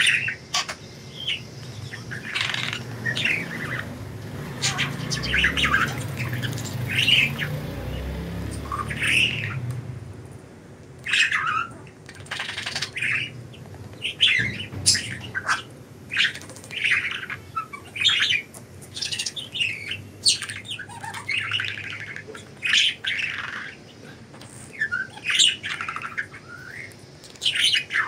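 Budgerigars chattering in a run of short chirps and squawks, thickest in the second half.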